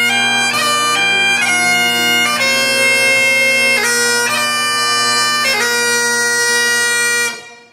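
Great Highland bagpipes playing: a chanter melody of held notes over steady drones. The pipes stop a little before the end, the sound dying away quickly.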